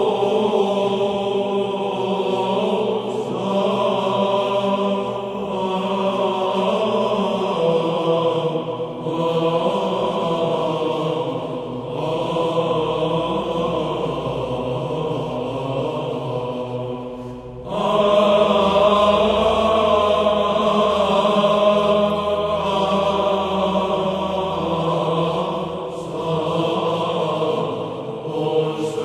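Male Byzantine choir chanting a slow hymn in Plagal Second Tone, with long-held sung notes over a steady low drone (the ison). There are short breaks between phrases, and after one about two-thirds of the way through the chanting comes back louder.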